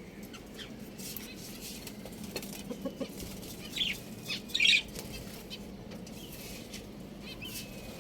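Chickens giving a few short, high-pitched clucks and squawks about four to five seconds in, over a steady low background; no full crow.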